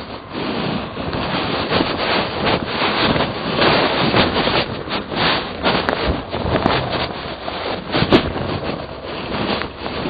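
Irregular rushing noise of wind and handling on a helmet-mounted camera's microphone, with a few sharp knocks in the second half.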